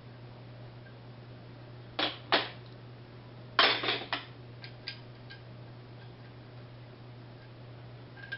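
Sharp metallic clicks and clanks of tools and bolts being handled while fitting a water pump to a small-block Chevy V8 engine block: two about two seconds in, a quick louder cluster a moment later, then a few lighter ticks and one more near the end, over a steady low hum.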